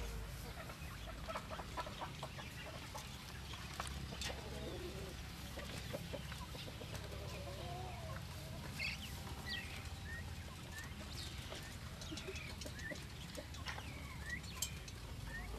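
Caged quails giving short, high chirping calls, some rising and some falling, scattered through the second half. Earlier there are a few light clicks and taps, all over a faint low hum.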